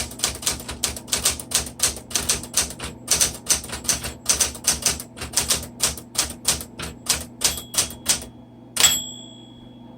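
Smith Corona Super Sterling manual typewriter being typed on: a rapid, steady run of key strikes. Near the end, one strike is followed by a single ring of the margin bell, which seems to ring only intermittently on this machine.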